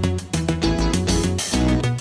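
Background music with plucked guitar notes over a steady beat.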